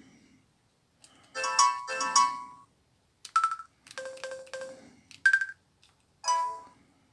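Samsung SGH-U700 slider phone sounding its keypad tones: about six short musical beeps of differing pitch, one per key press, as a code is keyed in.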